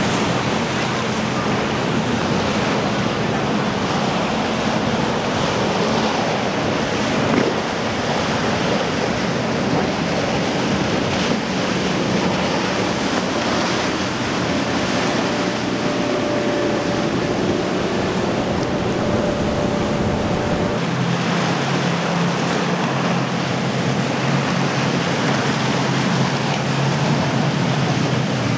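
Boat engines running at speed through breaking waves, with wind buffeting the microphone. About two-thirds of the way through, the deep rumble drops away and a steadier engine hum carries on over the water noise.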